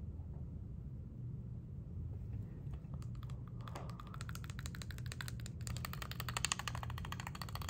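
Typing on a computer keyboard: a few scattered key clicks, then a fast, continuous run of keystrokes from about four seconds in.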